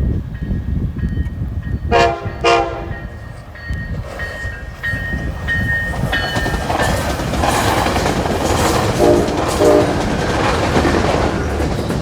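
Passenger train horn sounding two short blasts, then the train running past with rising rumble and wheel clatter, and two more short, lower blasts as it goes by.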